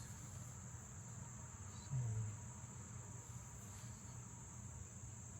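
Steady high-pitched trilling of crickets in the background, with a brief low sound about two seconds in.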